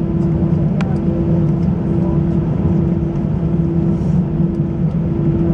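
Steady cabin noise inside an Airbus A320: a low rumble from the engines and airflow, with a steady hum that drops out briefly at fairly even intervals, and a few faint clicks.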